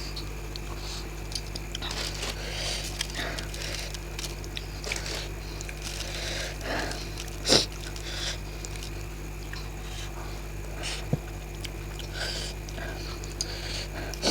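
Close-miked eating of raw green chillies and boiled egg: irregular wet chewing, smacking and mouth clicks, with one sharper click about halfway.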